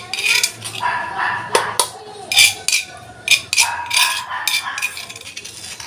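Onion being pounded with a stone pestle in a small stone mortar to crush out its juice: sharp, unevenly spaced knocks, about two a second.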